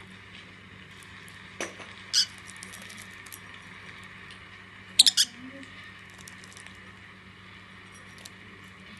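Lovebirds giving short, shrill chirps: a single call about two seconds in and a quick burst of three about five seconds in, with faint ticking and scratching between them.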